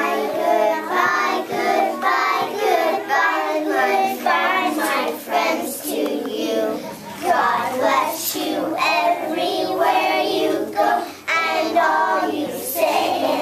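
A group of young children singing a song together, voices held on sustained notes that keep changing pitch.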